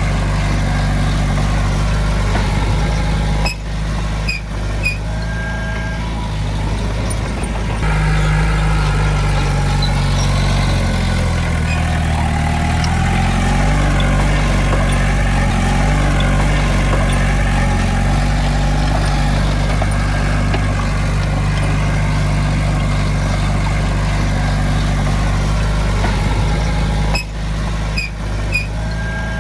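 Heavy earthmoving machine's diesel engine running steadily. Its pitch wavers up and down through the middle stretch, with brief dips and a few short clanks about four seconds in and again near the end.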